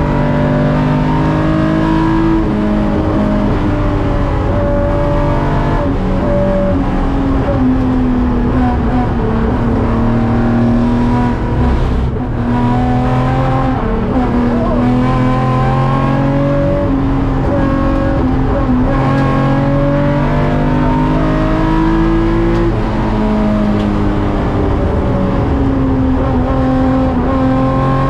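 Nissan Fairlady Z (S30) race car's 3.1-litre L28-based straight-six on Solex carburettors under load at racing speed, picked up by the onboard camera's microphone. The engine note repeatedly climbs and drops, with a short break in power about twelve seconds in.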